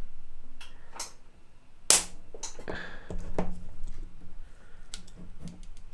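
Battery spot welder firing once about two seconds in: a single sharp crack as the weld pulse goes through the nickel strip onto an 18650 cell, with a few faint clicks around it.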